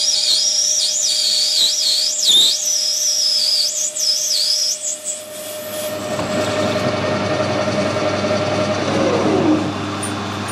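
Metal lathe parting a plastic bush off bar stock: a high, wavering squeal from the cut over the lathe's steady whine for about the first five seconds. Then a steady rushing noise takes over, and a tone drops in pitch near the end.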